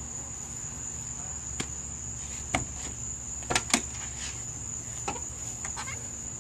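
A steady, high-pitched chorus of insects, with a few short, sharp clicks scattered through it, the loudest near the middle.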